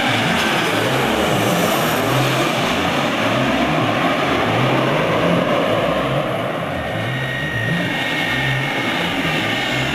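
Twin-engine jet airliner on final approach passing low overhead, its engine roar sweeping in pitch as it goes over and away. About seven seconds in, a thin engine whine comes in over the roar as another airliner approaches.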